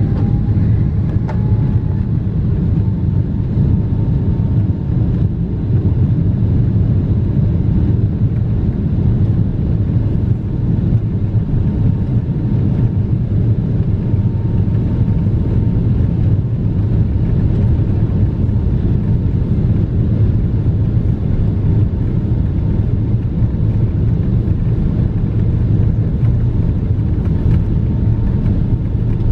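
Boeing 777-300ER cabin noise heard from a passenger seat: the GE90 jet engines and airflow make a steady, loud low rumble with a faint steady whine over it.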